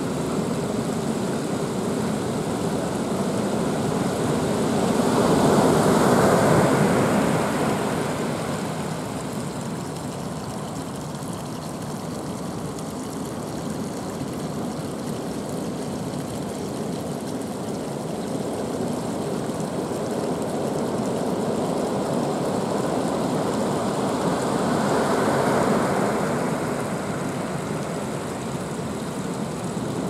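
Heavy surf from a typhoon swell: a steady rush of long waves breaking on the shore, swelling loudest about six seconds in and again near the end.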